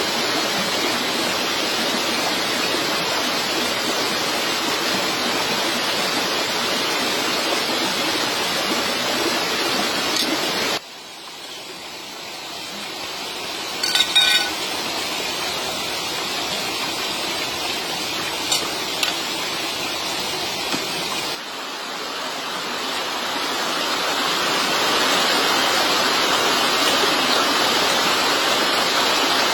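Steady rushing of water that drops suddenly to a softer hush partway through and swells back up later. A single ringing clink comes near the middle, followed by a few faint ticks.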